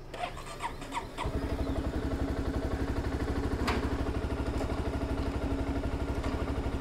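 Honda sport motorcycle started from cold: a few clicks, then the engine catches about a second in and settles into a steady idle.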